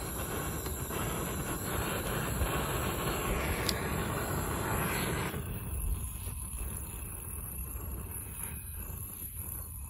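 Strong cold wind buffeting the microphone. A gust rushes for about five seconds, then cuts back to a low rumble.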